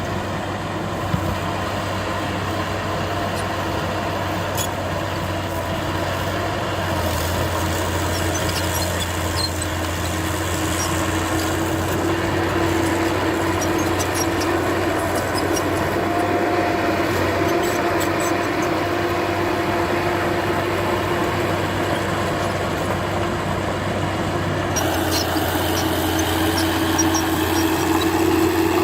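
Heavy diesel engine of earth-moving machinery running steadily, growing gradually louder.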